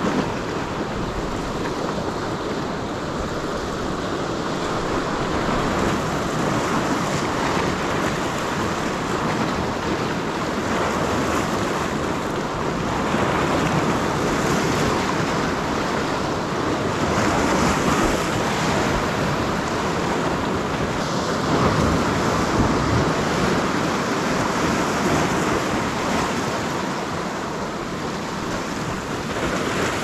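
Ocean surf washing over and around shoreline rocks: a steady rush of water that swells and eases as each wave comes in.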